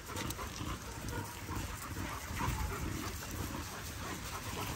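Dogs at play heard faintly, with breathing and small sounds of movement over a low rumble; no barking.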